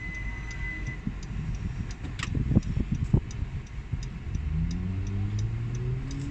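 Inside a moving car: engine and road rumble, with a steady ticking about three times a second and a few knocks near the middle. Toward the end the engine rises in pitch as the car accelerates.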